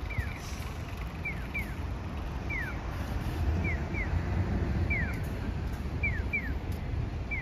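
Japanese audible pedestrian-crossing signal playing its electronic 'piyo' chick-like chirps: short falling whistles that alternate one and two at a time at an even, machine-like pace, the call-and-response of signals on opposite sides of the crossing. Wind buffets the phone's microphone underneath.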